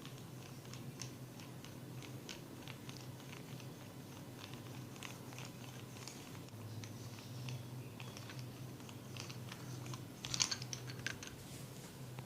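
Hands massaging the head and working the hair against the scalp, giving irregular small crackling clicks, with a louder, denser run of crackles about ten seconds in.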